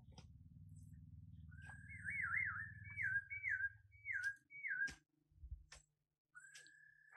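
A high, pure whistle-like tone that warbles quickly up and down several times, then holds a steady note near the end, over a low rumble in the first half. A few sharp clicks and a low thud are heard.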